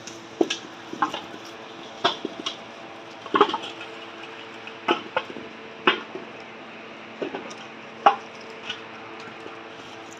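Peeled onions being tossed into a steel bowl: about a dozen irregular sharp clinks and knocks, roughly one a second, over a steady low hum.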